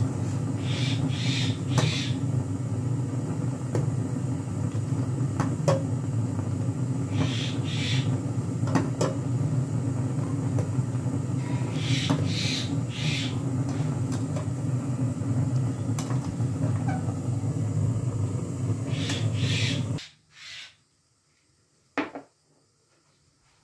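Milk tea boiling hard in a steel saucepan on a gas burner: a steady low rumble, with repeated splashes and clinks as a steel ladle stirs and lifts the tea. The rumble cuts off abruptly about 20 seconds in, and a single sharp knock follows as a cup is set down on the glass hob.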